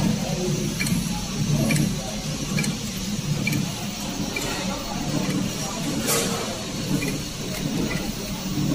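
Horizontal flow-pack wrapping machine running, with a steady mechanical hum and a regular click a little over once a second, one for each soap bar wrapped and sealed at about 70 packs a minute.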